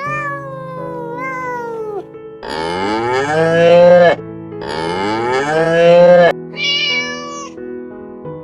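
A cat meowing at the start, then a cow mooing twice in two long, loud calls, followed by a shorter, higher call, over steady background music.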